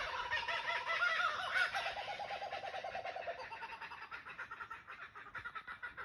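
Laughing kookaburras calling: a fast, repeated cackling laugh of rising and falling notes that fades away over the last few seconds.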